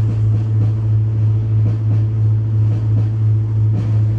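Ship's engine droning: a loud, steady low hum with a slow, regular throb.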